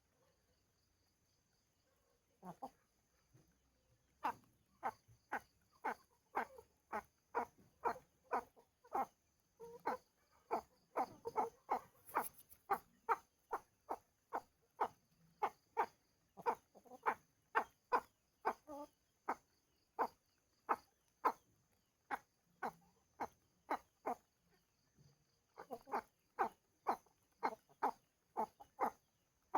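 An animal calling over and over in short, evenly spaced calls, about two or three a second, with a brief pause about three quarters of the way through.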